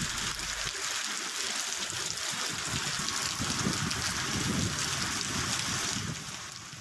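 Heavy rain falling with a steady hiss, and vehicle tyres splashing through standing floodwater on a road. The sound drops away shortly before the end.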